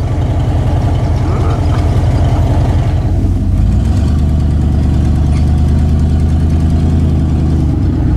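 Ford F-150 pickup's engine running near idle as the truck moves slowly, heard from the cab through an open window; its note drops and steadies a little before halfway.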